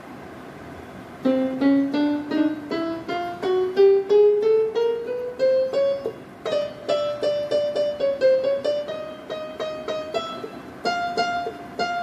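Yamaha PSR-I425 electronic keyboard sounding single notes as its keys are pressed one after another to find the keys whose rubber contacts have stopped working. The notes start about a second in and climb step by step at about four a second. From about halfway they stay near one higher pitch, with a couple of short pauses.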